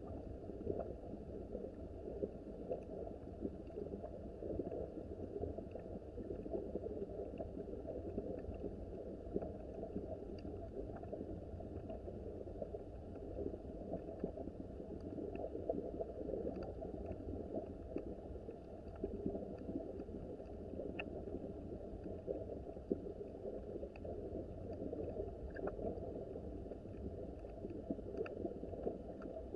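Small mountain stream flowing steadily, a low rushing and gurgling of water, with a few faint scattered clicks above it.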